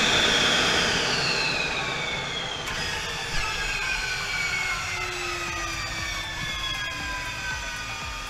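Jet engine winding down on the ground: several high whining tones fall slowly and steadily in pitch while the engine noise fades.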